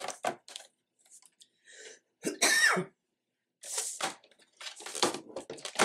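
A person clearing their throat with a cough, loudest about two seconds in, among light taps and rustles of cardstock being handled.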